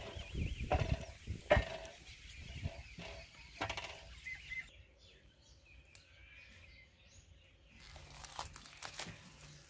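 Wooden spatula scraping and knocking around a large aluminium pot as onions and garlic fry in oil, about four strokes in the first few seconds. A little past halfway this gives way to faint outdoor quiet with a few faint bird chirps.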